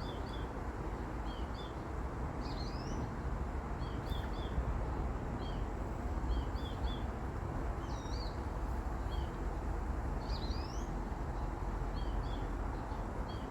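Small birds chirping: short high chirps, often in pairs, repeated over and over, with a few longer sliding calls mixed in, over a steady low background rumble.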